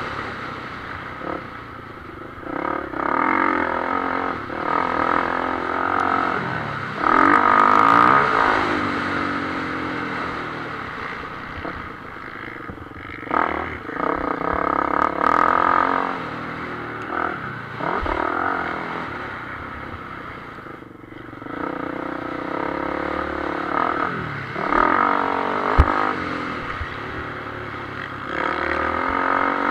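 Motocross bike engine heard from the bike itself while racing on a dirt track: the throttle is opened and closed over and over, the revs climbing in rising sweeps through the gears and falling away between straights and corners.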